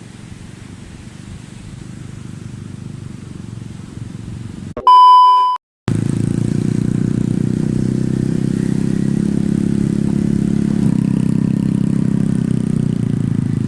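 Steady wind or surf noise, slowly growing louder, is cut by a loud pure beep of under a second about five seconds in, then a moment of dead silence. After that an engine runs steadily and loudly.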